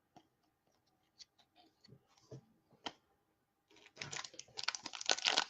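A few faint clicks and taps of trading cards being handled, then, a little before the end, the crackly crinkling of a foil card-pack wrapper being worked and torn open.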